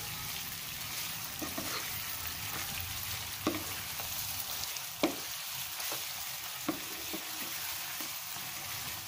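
Eggplant pieces in chilli balado paste sizzling steadily in a nonstick frying pan as they are stirred with a wooden spatula. A few short knocks of the spatula against the pan come through, the loudest about five seconds in.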